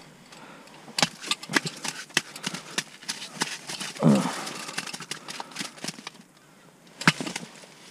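Scattered sharp clicks and taps as a whitefish is handled in a metal fish grabber over the ice. About four seconds in comes a brief vocal exclamation that falls in pitch, the loudest sound, and a single sharp knock follows about three seconds later.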